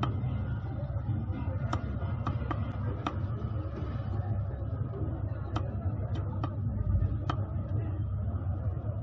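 Low, steady market rumble with faint background voices, broken by irregular sharp clicks and taps as pieces of a large aar catfish are sliced on a fixed boti blade.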